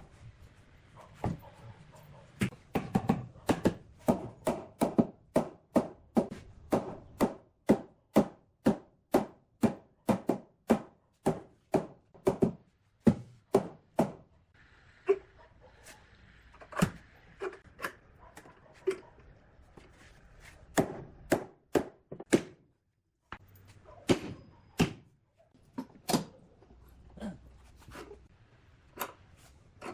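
Hammering on wood: a fast run of sharp knocks, about three a second, lasting some ten seconds, then slower, irregular knocks with pauses between them.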